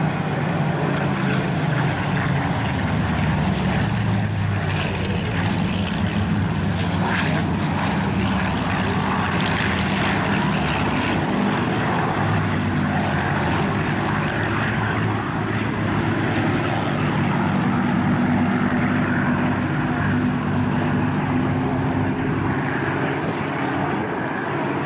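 Several Spitfire fighters flying overhead, their V12 piston engines droning steadily with the pitch shifting a little as they pass.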